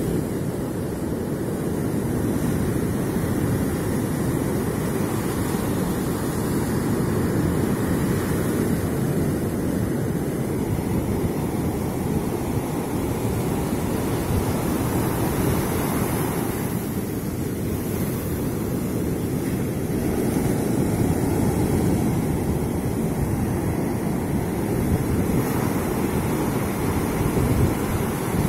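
Sea surf breaking and washing up a sandy beach in a steady, continuous wash, with wind buffeting the microphone.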